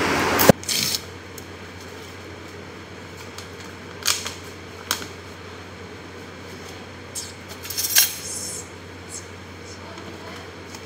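Scattered light clinks and taps from handling a bowl, spoon and spice packet while preparing boiled potatoes at a kitchen counter, over a low steady hum. The loudest clatter comes about eight seconds in.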